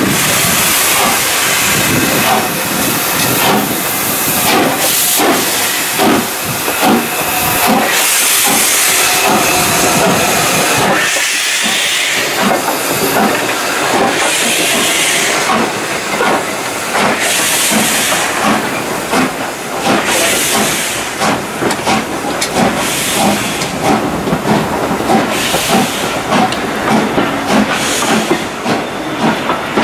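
LMS Hughes 'Crab' 2-6-0 steam locomotive 13065 pulling away and passing close by, hissing steam and beating out its exhaust. Its coaches then roll past with a quick rhythm of wheel clicks over the rail joints.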